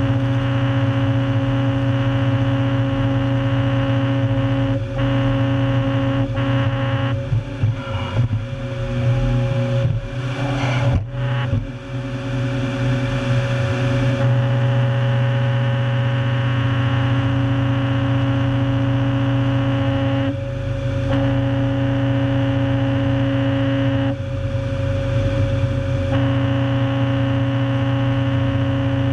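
Stumpmonster, a 400+ hp low-ground-pressure tracked stump destroyer, running with a steady engine drone and hum. Its rotary cutter head chews into a stump with irregular rattling and crunching from about 7 to 14 seconds in.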